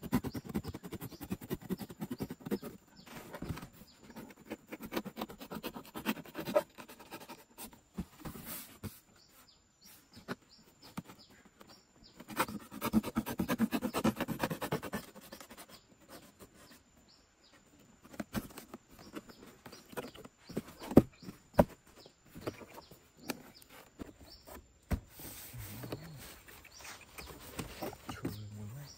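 A knife cutting through a cardboard carton: irregular rasping cuts, scrapes and taps as the cardboard is sliced and handled, with a longer stretch of scraping about midway through. Birds chirp faintly in the background.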